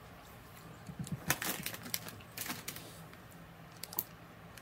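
Light crinkling and clicking of a plastic snack-cake wrapper being handled, with a bite and chewing of the soft waffle, in scattered short ticks that cluster about a second in, two and a half seconds in and again near four seconds.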